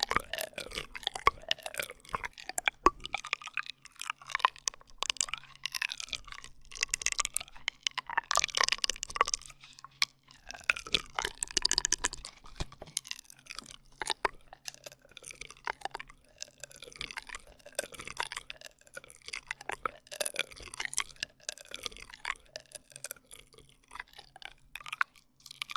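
ASMR drinking-straw sounds close to the microphone: an irregular run of wet clicks and short squeaky gliding squeals. They stop near the end.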